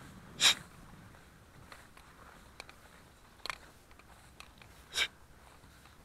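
Three short, sharp nasal sniffs close to the microphone, about half a second, three and a half and five seconds in; the first is the loudest.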